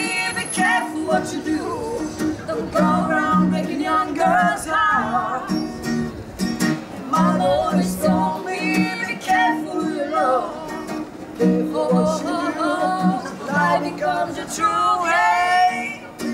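Live song: a voice singing a melody over a plucked string instrument playing steady low notes and chords.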